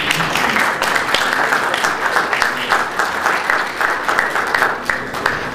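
Audience applauding: many hands clapping in a dense patter that dies down near the end.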